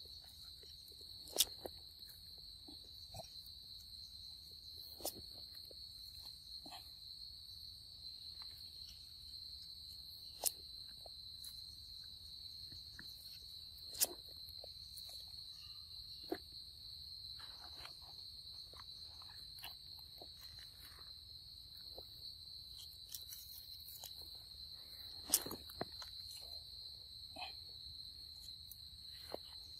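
Steady, high-pitched trilling of an evening insect chorus, with a few short sharp clicks and taps scattered through it, the loudest near the end.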